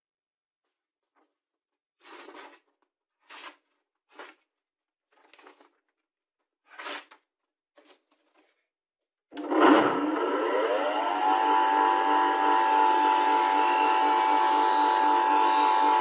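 A few short handling noises, then about nine seconds in a bench grinder is switched on. Its motor hum rises in pitch as it spins up for about two seconds, then runs steadily.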